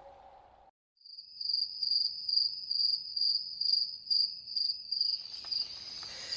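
Crickets chirping: a steady high trill that pulses about two or three times a second. It starts about a second in, just after the last of the previous tune fades out. Near the end a rising hiss swells in.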